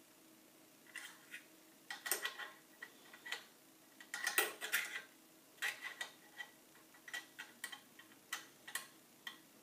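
Metal throat plate of a Singer 401 sewing machine being handled and seated on the machine bed: irregular light metallic clicks and taps, with louder clusters of clinks about two and four seconds in.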